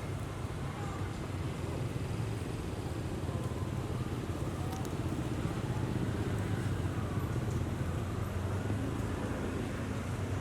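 Steady low rumble of motor traffic or a running vehicle, even throughout with no sudden events.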